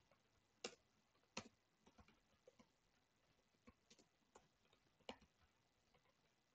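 Faint computer keyboard keystrokes: about a dozen sharp, irregularly spaced clicks as a line of code is typed.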